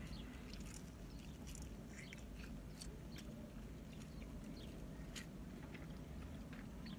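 A person chewing pieces of steak sandwich filling picked up by hand, with faint scattered wet clicks and smacks of the mouth, over a low steady hum.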